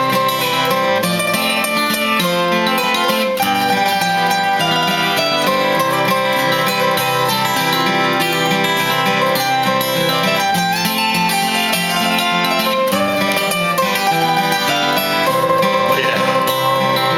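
Instrumental break of an old-time country gospel tune played on acoustic plucked strings: a picked lead melody over guitar accompaniment, with no singing.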